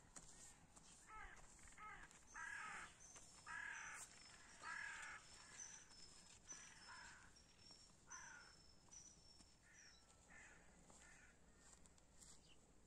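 Crows cawing, a dozen or so faint, harsh calls spread over about ten seconds, thinning out near the end.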